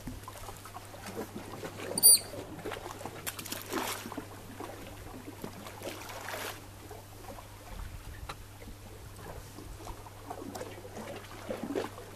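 Sea water lapping and sloshing against a rocky quay wall, with small splashes, and one short, sharp, high-pitched whistle about two seconds in.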